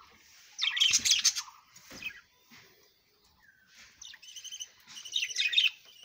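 Budgerigars chattering and squawking: a loud burst of harsh, rapid chirps about a second in and another near the end, with a few short chirps between.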